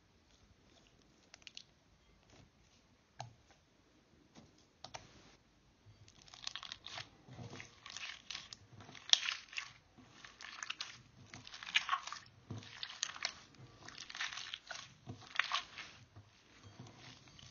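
Green slime with small orange gel beads mixed in, squeezed and kneaded by hand in a glass bowl: sticky crackling and popping. A few scattered clicks at first, then dense crackling from about six seconds in.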